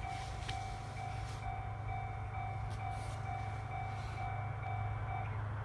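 Electronic railway warning bell ringing in an even beat of about two strikes a second, stopping near the end, over a steady low rumble.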